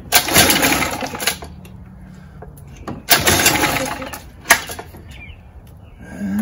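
Mercury 7.5 hp two-stroke outboard being pull-started twice by its recoil starter rope, choked and primed; each pull lasts about a second and the engine does not catch. A sharp click follows the second pull.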